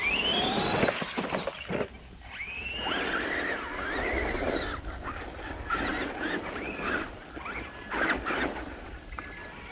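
Electric RC car motor whining, its pitch rising and falling in several runs as the throttle is worked, with tyres crunching over gravel.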